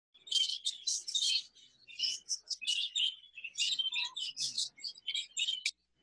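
A flock of exhibition budgerigars chattering, a dense run of quick, high-pitched chirps and warbles that cuts off abruptly near the end.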